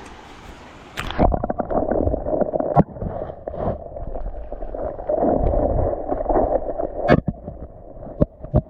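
GoPro dipped under the creek's surface about a second in: muffled, gurgling underwater sound of moving creek water, with a few sharp knocks.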